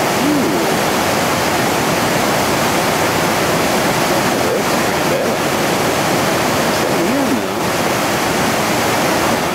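Whitewater rapid, a river pouring over and between boulders, rushing loudly and steadily.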